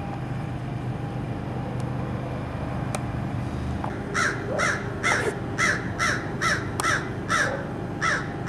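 A bird calling over and over, starting about four seconds in: short harsh calls about twice a second, over a steady low background hum.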